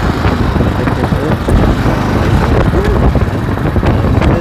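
Wind buffeting an earphone's in-line microphone at riding speed, over a steady low rumble of the ride, heard from inside a helmet.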